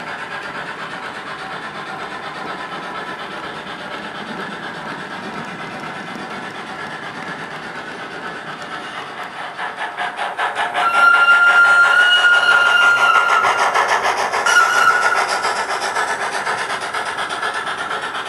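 Model freight train of tank wagons rolling along the track with a steady clatter. About ten seconds in, the sound of a 141 TA steam tank locomotive from its ESU LokSound decoder grows loud, with rapid chuffing and two whistle blasts, one long and one short, then slowly fades.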